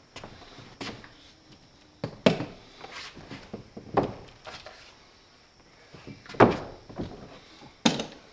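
Scattered knocks and thumps, about five over several seconds, as tool parts and packaging are handled and set down.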